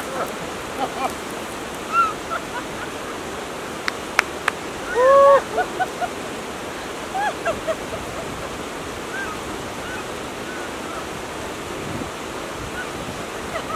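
Glacial mountain stream rushing over rocks, a steady hiss, with short voice sounds over it: brief calls here and there, the loudest a drawn-out one about five seconds in, and two sharp clicks shortly before it.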